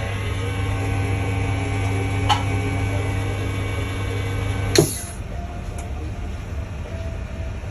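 Henkelman chamber vacuum packing machine's pump running with a steady hum while it draws down the chamber, with a small click about two seconds in; near the five-second mark the pump cuts off with a short, sharp burst of hiss and a clunk, and the machine goes much quieter.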